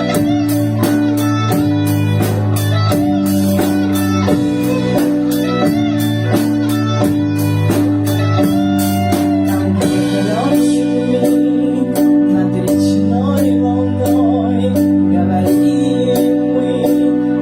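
Band music: a guitar melody over a steady bass line that changes note every second or so, with a regular drum beat.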